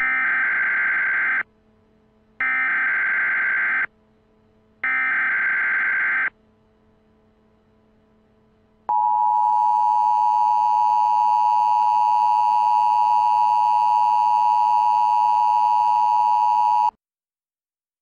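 Emergency Alert System broadcast signal: three identical bursts of SAME digital header data, each about a second and a half long with a short gap between them, then the two-tone attention signal, a steady harsh dual-pitched beep that lasts about eight seconds and cuts off abruptly.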